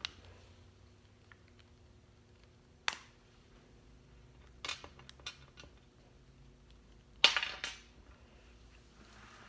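Small plastic doll parts and accessories being handled, clicking and tapping against a glass tabletop in a few short, scattered knocks, with the loudest cluster about seven seconds in.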